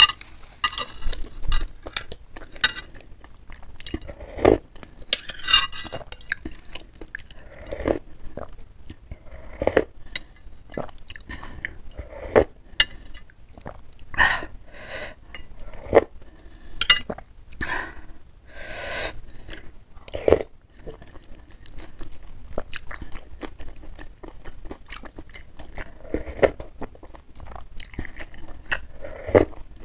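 Close-up mouth sounds of eating bakso, beef meatball soup with rice vermicelli: wet chewing and lip smacks, with a few slurps of the spicy broth from a spoon. Now and then a spoon clinks against the bowl.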